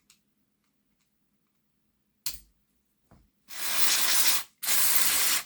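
Two bursts of aerosol cleaning spray, each about a second long, the second following right after the first, blasting oil and static grass off model locomotive motor parts. A light click comes before them, a little over two seconds in.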